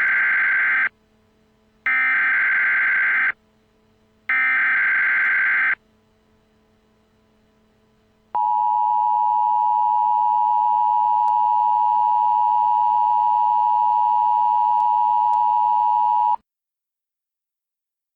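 Emergency Alert System SAME header: three bursts of screechy digital data tones. After a short pause comes a steady attention tone of about eight seconds that cuts off sharply, the signal that an emergency alert message follows.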